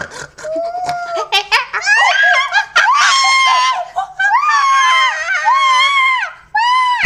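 A child shrieking and squealing in a series of long, high-pitched screams about a second each, mixed with laughter.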